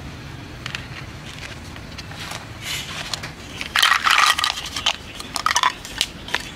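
Wooden spoon stirring and scraping flour-coated corn kernels in a plastic bowl, with a loud rustling burst about four seconds in. Ice cubes then drop onto the corn with a quick run of clicks and clacks near the end.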